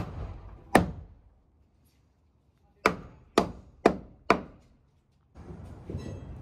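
Steel claw hammer driving a nail into a wooden 2x4 brace on roof trusses: two blows, a pause of about two seconds, then four quick blows about half a second apart.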